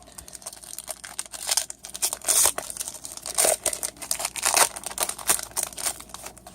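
A trading card pack's wrapper crinkling and tearing as it is opened and handled by hand, in irregular crackly bursts that are loudest in the middle.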